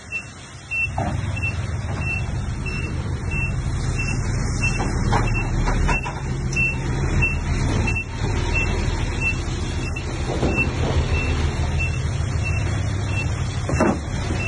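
Diesel engine of heavy earth-moving machinery running steadily, coming in about a second in, with a high-pitched reversing alarm beeping at an even pace, about two to three beeps a second. A few short squeals rise above the engine now and then.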